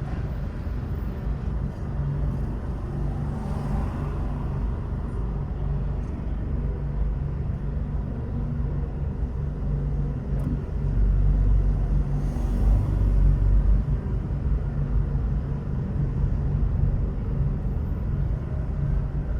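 Car driving in city traffic: a steady low rumble of engine and road noise that swells louder for a few seconds a little past the middle.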